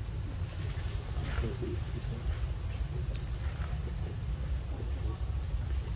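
Steady high-pitched drone of a forest insect chorus, over a low rumble.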